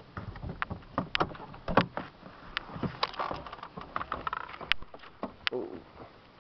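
Mercedes-Benz W124 rolling slowly over a rough dirt and gravel road: irregular clicks and knocks from stones under the tyres and the body and suspension.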